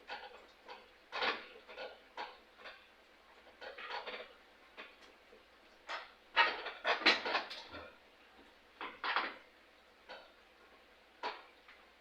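Irregular clinks and clatters of hand tools and small metal parts being handled during work on a lawn mower engine, loudest in a quick cluster about six to eight seconds in.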